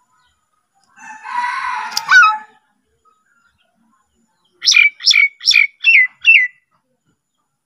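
Hill myna calling: a harsh, rasping call about a second in, then a run of five short, sharp whistled notes, each falling quickly in pitch, a little more than two a second.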